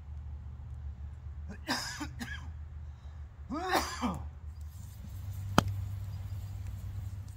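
A steady low drone of distant chainsaws runs under the woods' ambience. Two short voice-like sounds come about two seconds apart, and a single sharp click follows about five and a half seconds in.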